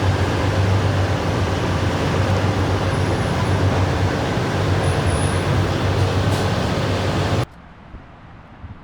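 Steady, loud roar of a large waterfall, a dense rushing noise heaviest in the low rumble, cutting off abruptly about seven and a half seconds in to a much quieter hiss.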